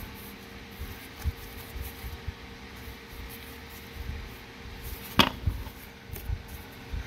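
Quiet handling of a stack of trading cards being fanned through, with soft low knocks and rustles, and one sharp tap about five seconds in as the stack is set down on the table. A faint steady hum runs underneath.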